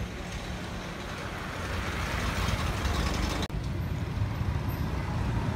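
Road traffic: a passing vehicle's tyre and engine noise swells about two seconds in, then, after a brief dropout, a van's engine runs with a low rumble close by.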